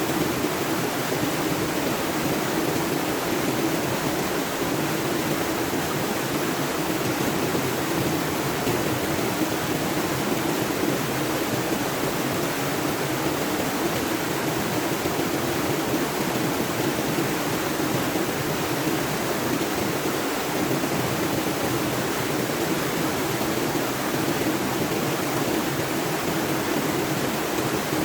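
Waterfall and stream water rushing steadily, an even hiss with a low rumble underneath.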